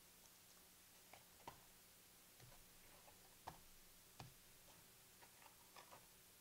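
Near silence with about a dozen faint, scattered clicks and taps, the kind made by trading cards and card sleeves being handled on a table.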